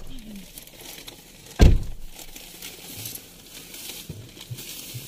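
A plastic snack packet crinkling in someone's hands, with faint voices, and one dull thump about a second and a half in.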